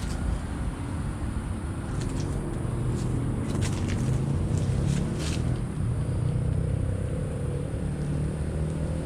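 Low, steady rumbling drone whose deep tones slowly swell and shift, with a few short sharp crackles about halfway through.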